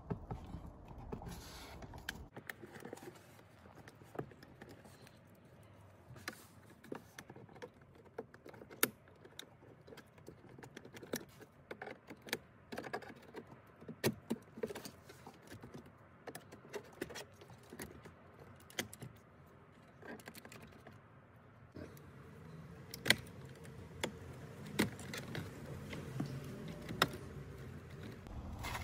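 Plastic interior trim panel of a BMW F10 being pried off by hand: irregular small plastic clicks, creaks and taps as its retaining clips work loose, with a few louder clicks near the end.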